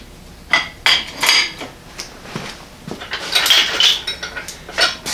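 Steel lifting chain and a wrench clanking and clinking against a Ford flathead six engine and transmission: a string of sharp separate metal knocks, with a longer chain jangle a little past halfway.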